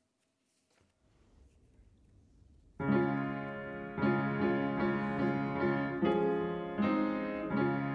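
Piano music starts about three seconds in, after a near-silent pause: chords are struck about once a second, each left to ring and fade.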